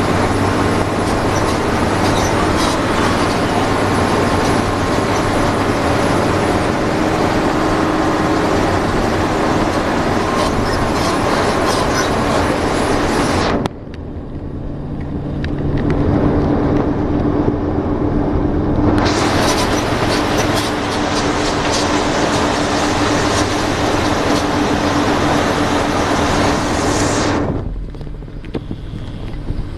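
Bus cabin noise at highway speed: the steady drone of the bus engine under loud road and wind hiss. The hiss drops off sharply about halfway through, swells back up, and falls away again near the end.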